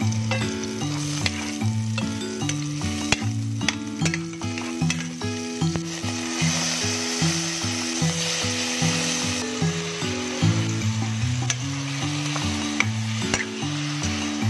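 Oil sizzling in a stainless pot as onion and garlic are sautéed, with a metal spoon clicking and scraping against the pot. The sizzle grows louder about six seconds in, when the squid and tomato mixture goes into the hot oil.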